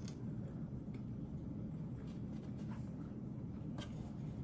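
Faint chewing of a mouthful of taco, mouth closed, with a few soft clicks, over a steady low hum.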